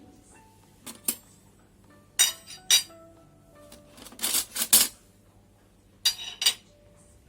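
Dishes and cutlery clinking in four short clusters of sharp strikes, each with a brief ringing after it.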